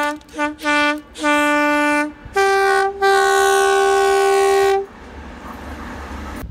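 A British train's two-tone horn. It sounds the lower note in four blasts, three short and then one held about a second, and then the higher note twice, the second held for nearly two seconds.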